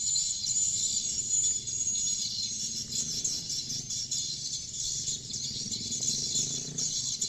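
Swiftlets twittering, a dense, continuous high chattering, over a steady low hum.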